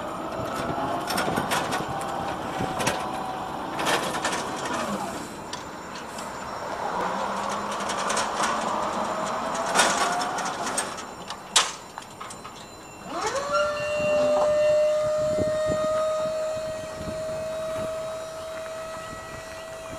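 JLG 1930ES electric scissor lift driving, its motor whine gliding up and down in pitch among clicks and knocks. About two-thirds of the way through, the lift motor starts with one steady whine that creeps slowly up in pitch as the platform rises.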